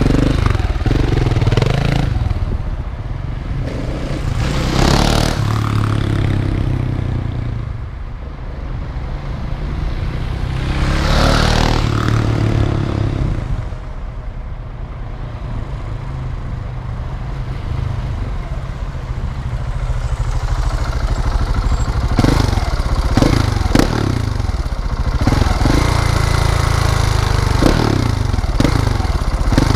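Husqvarna 701's single-cylinder engine running through an Akrapovič silencer with modified internals, revving up in two long surges and then in a run of short, quick throttle blips near the end.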